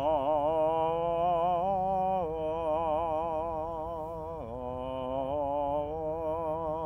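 A solo voice chanting a slow funeral prayer melody, holding long notes with wide vibrato and stepping down in pitch about two seconds in and again a little past four seconds in.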